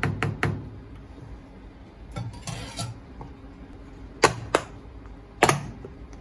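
A metal spoon tapping quickly against a plastic food container for about half a second, then the container's snap-lock lid going on and its clip tabs snapping shut: two sharp plastic clicks close together about four seconds in and a louder one a second later.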